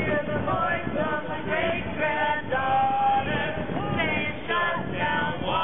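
A crowd of protest marchers singing together, some notes held longer.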